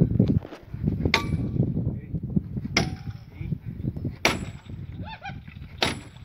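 Hammer blows on metal at the foot of a split boulder: four sharp, ringing clangs about a second and a half apart, over a steady low rumble.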